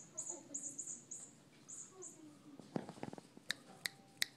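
Faint high chirps, then a brief rattle followed by three sharp metallic clicks about a third of a second apart, as a cat moves across the top of a wire cage.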